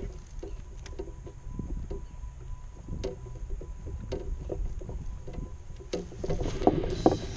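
Light knocks and taps of gear being handled on a plastic kayak as a fishing rod is lowered and set into its holder, over a steady low wind rumble on the microphone. The taps grow busier and louder near the end.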